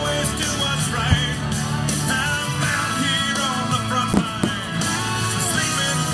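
Recorded rock-style song with singing and guitar, steady throughout, with two sharp thumps, about a second in and about four seconds in.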